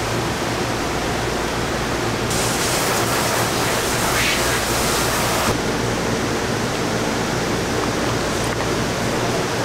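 Steady rushing noise with a low hum, typical of a kitchen's ventilation fans. A brighter hiss swells over it for about three seconds in the middle.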